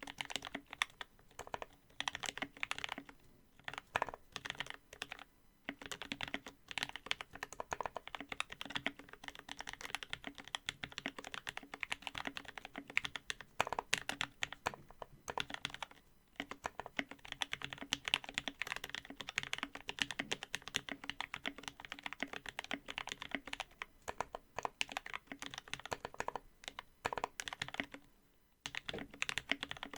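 Fast typing on a mechanical keyboard: lubed and filmed Gateron Black Ink linear switches in an aluminium case with case foam and an aluminium plate, under GMK keycaps. It goes in a steady, irregular run of key strokes with a few brief pauses.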